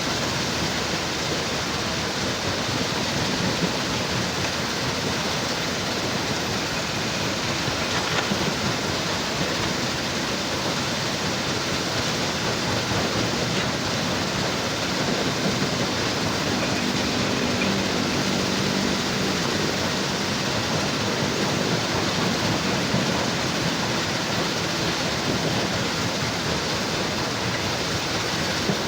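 Heavy machinery running steadily at a work site: a loud, even rush of machine noise from an excavator and a stone crusher, with a faint engine hum rising out of it about halfway through.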